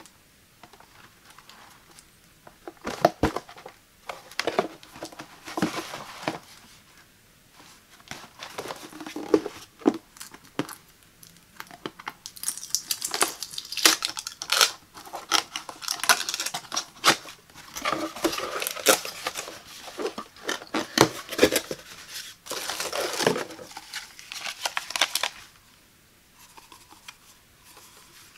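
Close-up sounds of a cardboard box being handled and opened by hand. Tape is peeled and torn from the box in a dense scratchy stretch about halfway through, followed by cardboard flaps and paper inserts rustling and crinkling.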